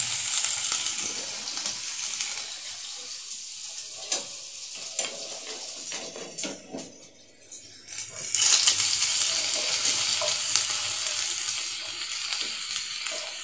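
Chopped garlic sizzling in hot mustard oil in a non-stick frying pan, stirred with a wooden spatula that gives occasional light scrapes and taps. The sizzle dies down toward the middle and comes back loud about eight seconds in.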